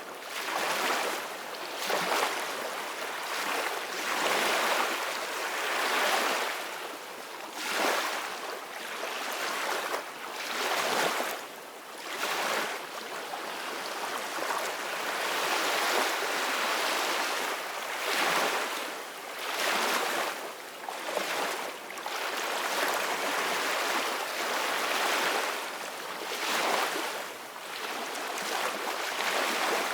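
Ocean waves breaking and washing on a beach, a steady surf hiss that swells and eases every two to three seconds.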